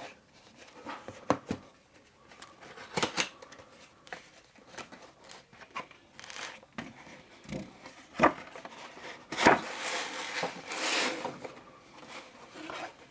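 Cardboard packaging of an Apple Watch Ultra being opened by hand: scattered taps, clicks and knocks, with a longer rustling scrape of box parts and paper sliding apart about ten seconds in.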